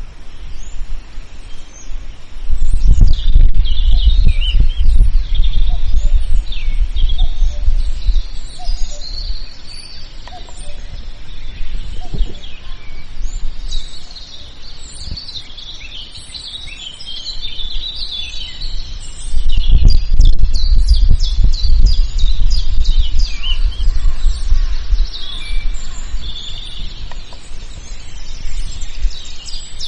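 Forest birdsong: many small birds chirping and trilling at once. A loud, low rumble swells in a couple of seconds in and again about two-thirds of the way through, each time lasting several seconds and louder than the birds.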